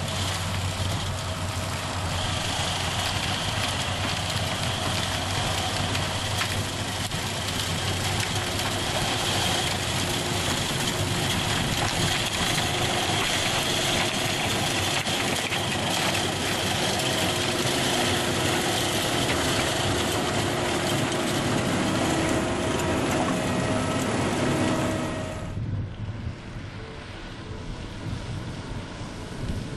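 Vervaet 625 self-propelled sugar beet harvester lifting beet: engine and lifting machinery running steadily, with a steady high whine over it. About four seconds before the end the sound cuts abruptly to something much quieter: a tractor engine in the distance.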